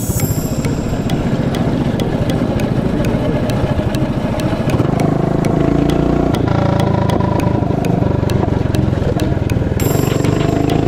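Mini bike's small engine running on the move; about halfway through the revs rise and it runs louder at a higher, steady pitch.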